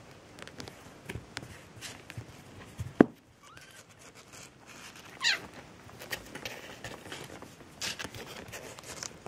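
Young Maine Coon kittens moving about close to the microphone: scattered soft taps and rustles, a sharp knock about three seconds in, then a faint short mew and, a couple of seconds later, a high squeaky mew that falls steeply in pitch.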